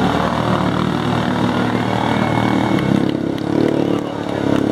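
Lifted side-by-side's engine running under load as the machine churns through deep mud and water, the note steady and loud throughout.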